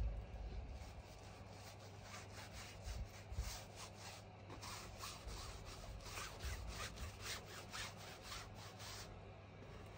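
Faint, quick rubbing strokes of gesso being brushed onto a stretched canvas, about two to three strokes a second, stopping shortly before the end.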